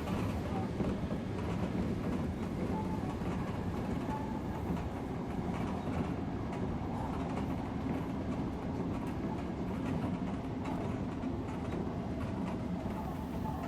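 Odakyu electric commuter train running at speed, heard from the front car: a steady rumble of wheels on the track with faint scattered clicks.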